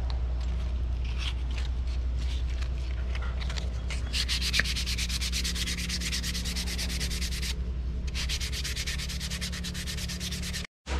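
Sanding on a wooden knife handle: fast, even rubbing strokes over a steady low hum, cutting off abruptly near the end.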